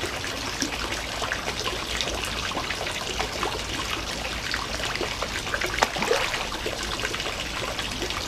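Garden pond water trickling and splashing steadily, with many small splashy clicks on the surface.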